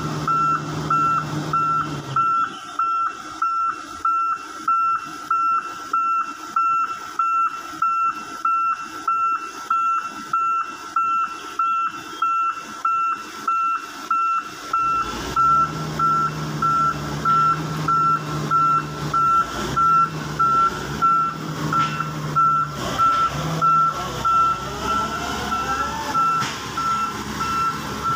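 Volvo excavator's warning alarm beeping steadily, about one and a half beeps a second, over the machine's diesel engine; the low engine drone falls away about two seconds in and comes back about halfway through.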